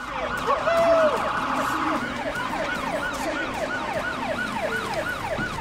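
Police car siren, first a fast warbling tone, then a rapid yelp rising and falling about three times a second.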